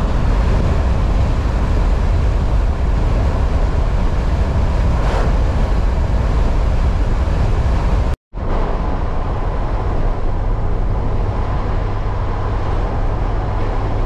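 Steady road and wind noise of a car travelling at highway speed, heard from inside the cabin, with a low rumble. It cuts out for a moment about eight seconds in and then carries on the same.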